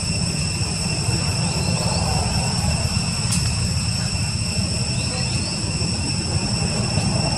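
A steady low rumble with a constant high-pitched whine over it.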